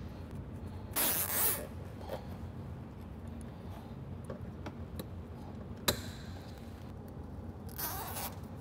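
A nylon cable tie being pulled tight through its ratchet, a short zipping rasp about a second in. A sharp click follows just before six seconds, and a second, softer rasp comes near the end.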